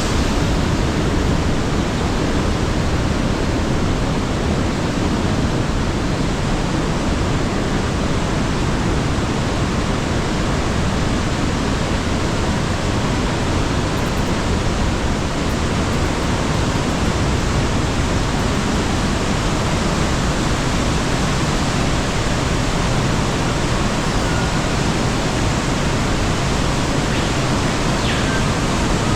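Loud, steady rush of white water: the Kapruner Ache mountain stream pouring through a narrow rock gorge in cascades and falls.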